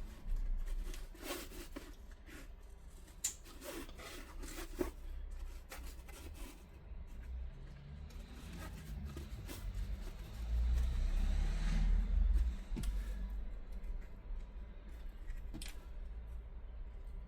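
Hands working stiff X-Pac bag fabric and webbing: scattered small clicks and rustles, then a longer stretch of rubbing and rustling about eight to twelve seconds in, with a low rumble of handling.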